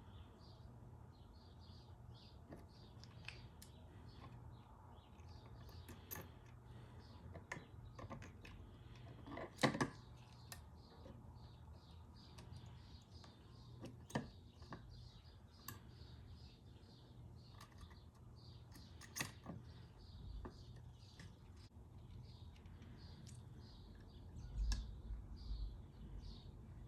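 Faint, scattered clicks and taps of soldering tools on an Xbox One controller's circuit board during desoldering of the joystick, the sharpest click about ten seconds in and a few low knocks near the end. Birds chirp faintly throughout over a low steady hum.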